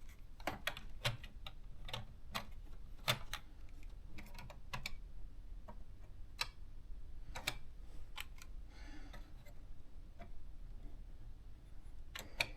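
Scattered, irregular small plastic clicks and taps from handling and seating the ribbon and correction-tape cartridges in a thermal typewriter's print carriage, with a brief soft rustle about 9 seconds in.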